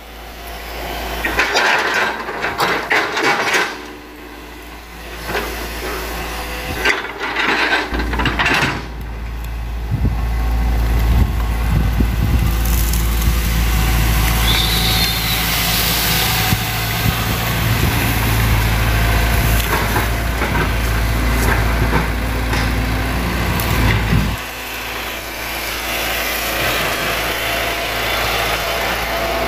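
Hitachi crawler excavator's diesel engine working hard as its bucket pushes over and uproots an oil palm, with bursts of cracking and snapping from roots and fronds in the first several seconds. The engine runs loud and steady through the middle, then drops to a lower note about six seconds before the end.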